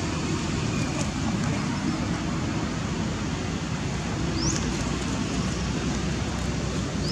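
Steady low outdoor background rumble with no clear events. Two brief, high, rising squeaks come through it, one about four and a half seconds in and one at the very end.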